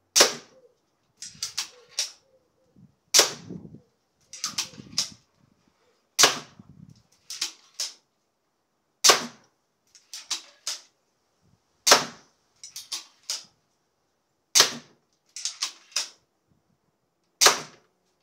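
Repeating crossbow with a rapid-fire magazine, an Alligator crossbow, firing seven bolts about three seconds apart, each release a sharp snap. Between shots come quicker clusters of clacks as the bow is cocked and the next bolt drops from the magazine.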